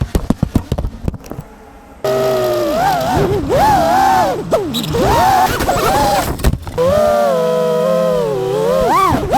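FPV quadcopter's brushless motors and propellers whining, the pitch swinging up and down with the throttle. A run of sharp clicks in the first second gives way to a short lull, then the whine comes back suddenly about two seconds in.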